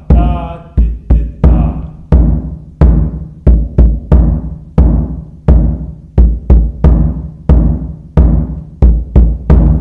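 Lithuanian kelmas, a hollowed stump drum with a goat-skin head (called ožka), struck in the centre with a mallet for its low bass sound. It plays a simple repeating rhythm, ta ta ti-ti ta, about two strokes a second, each a deep thud that rings out briefly.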